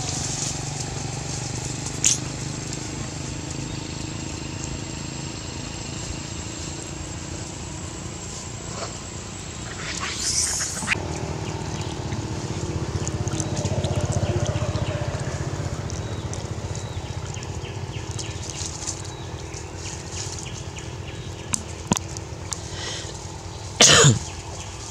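Outdoor ambience with a steady low hum, broken by a few short, loud macaque calls, the loudest near the end as one monkey rushes at another.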